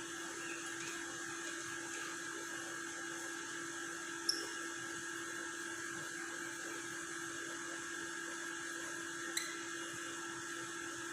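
Steady whine of a small electric motor or fan, holding fixed pitches, with two brief sharp high-pitched sounds about four and nine seconds in.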